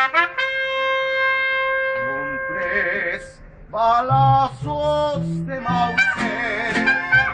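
Mariachi band playing live: a trumpet holds one long note, then after a brief pause the guitarrón's deep bass notes and the strummed vihuela and guitars come in, with wavering violin lines above.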